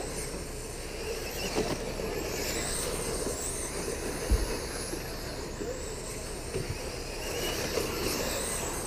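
Radio-controlled late-model race cars running laps on a dirt oval. Their motors make a high whine that rises and falls as cars pass, over a steady rush, with one brief thump about four seconds in.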